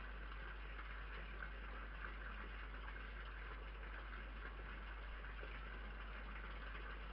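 Steady low hiss with a constant low hum, from a security camera's microphone, with no distinct events: neither the cat nor the fox is heard.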